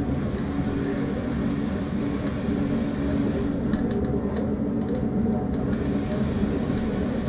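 Heritage railway train running along the line, heard from inside the carriage: a steady rumble of wheels on rail, with a few light clicks about halfway through.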